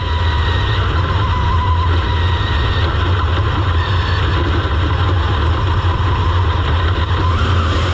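Dirt Super Late Model's V8 racing engine running at a steady pitch, heard on board through the car's in-car camera, with a heavy low rumble.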